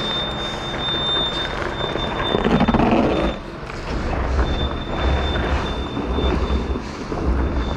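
Holden Adventra's 3.6-litre Alloytec V6 running as the wagon works on a steep rutted track, with a louder surge about two and a half seconds in. A high steady electronic tone cuts in and out.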